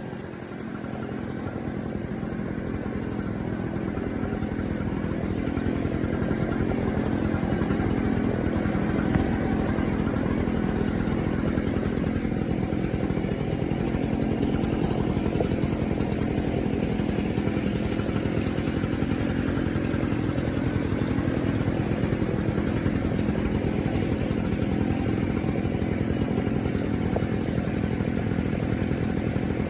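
Waterfall, a steady rushing roar of falling water, with its weight in the low-mid range; it grows louder over the first few seconds and then holds even.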